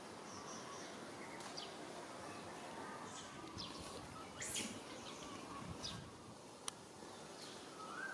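Outdoor background hiss with scattered short, high chirps and one sharp click about two-thirds of the way through.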